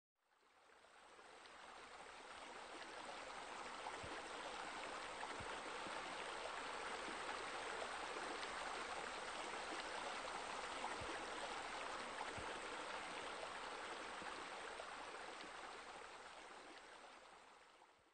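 Waterfall sound: a steady rush of falling, splashing water that fades in over the first couple of seconds and fades out near the end.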